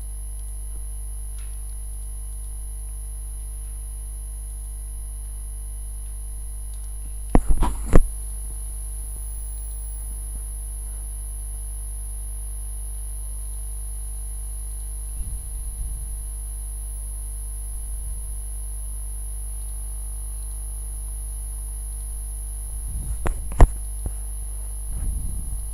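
Steady electrical mains hum with a few sharp clicks, a pair about eight seconds in and more near the end.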